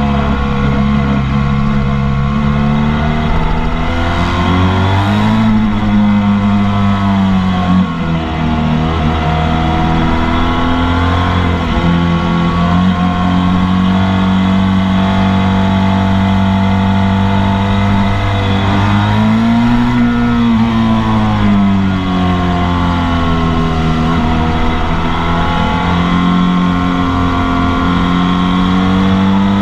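Onboard sound of a motorcycle engine running hard at track pace, its pitch rising and falling as the rider accelerates and shifts, with a brief dip about eight seconds in.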